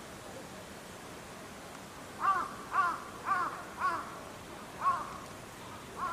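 A crow cawing six times: four quick caws about half a second apart, then two more, each a second apart.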